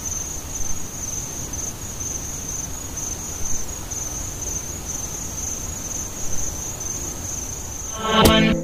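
Steady cricket chirping, a high evenly pulsing trill over a low rumble; music with a beat comes in near the end.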